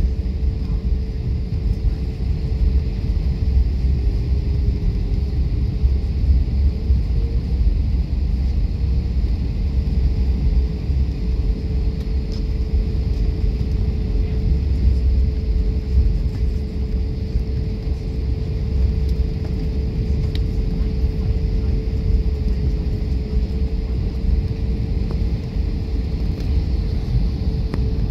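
Airbus A320 cabin noise on the ground: a steady low rumble from the engines and airframe with one steady droning hum that wavers only slightly in pitch.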